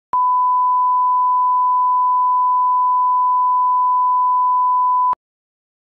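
1 kHz line-up test tone played with colour bars: a single steady, pure beep held for about five seconds, switching on and off abruptly with a faint click at each edge.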